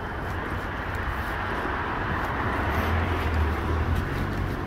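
Street traffic noise: a passing vehicle's rumble swells after about two seconds and eases off near the end.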